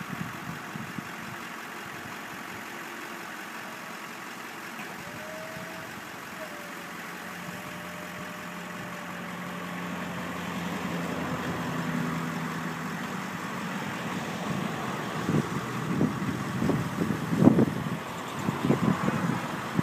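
Van-mounted Altec bucket truck running, its engine and hydraulics driving the boom up, with a steady low hum joining about halfway through. From about three-quarters of the way in, wind gusts buffet the microphone.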